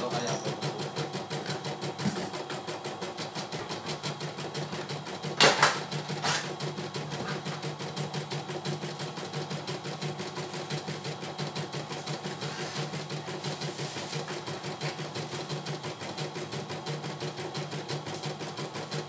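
CNY E900 computerized embroidery machine stitching out a design, its needle running in a rapid, even rhythm. Two louder knocks come about five and a half and six seconds in.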